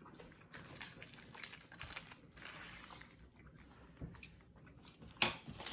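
Small irregular clicks and rustles from handling and eating candy, with one sharper click about five seconds in.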